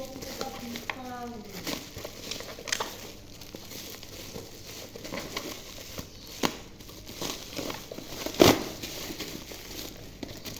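Parcel packaging being unwrapped by hand: irregular crinkling and rustling with a few sharp crackles, the loudest about eight and a half seconds in.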